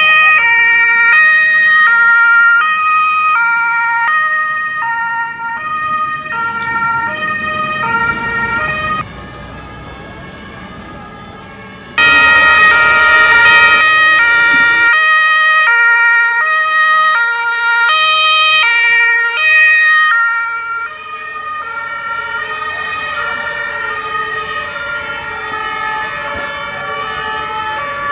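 Several emergency vehicles' two-tone sirens sounding at once, out of step with one another, each switching between a high and a low note about every two-thirds of a second. This is the German Martinshorn. The sound drops away around nine seconds in and comes back loud about three seconds later.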